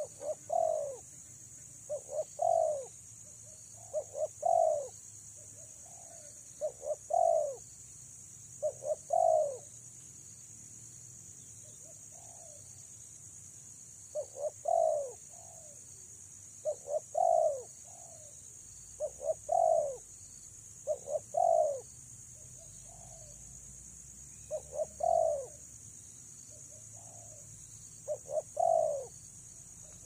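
Spotted dove (tekukur) cooing: a phrase of two or three short notes and a longer falling note, repeated about every two seconds with a few brief pauses and some softer single notes in between.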